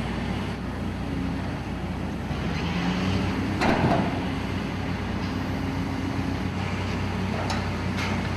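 A steady low mechanical hum, like running machinery, with a sharp knock or clank about three and a half seconds in and another near the end.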